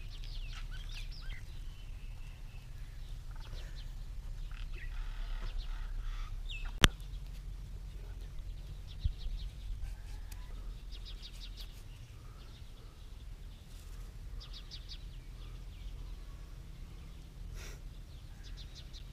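Small birds chirping and calling in short repeated trills over a steady low rumble, with one sharp click about seven seconds in.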